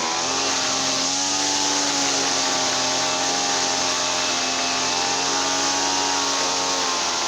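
Small petrol engine running at a steady speed, its pitch dipping briefly at the start and then holding.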